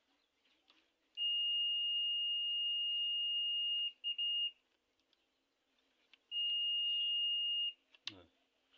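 A steady high-pitched electronic beep, held for nearly three seconds, stuttering briefly as it cuts out, then sounding again for about a second and a half.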